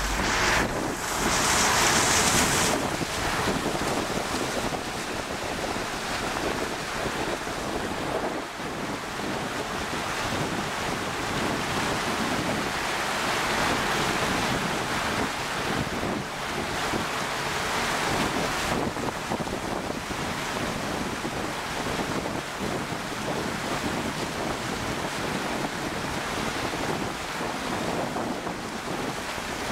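Floodwater rushing and splashing against a Land Cruiser as it wades through, with wind buffeting the microphone. It rises and falls in waves and is louder and hissier for a moment about two seconds in.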